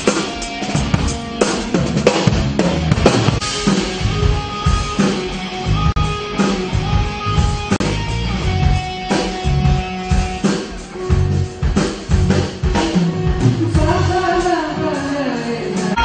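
Live band music led by a drum kit, with kick drum, snare and cymbal hits throughout. Near the end a voice sings a wavering held note over the band.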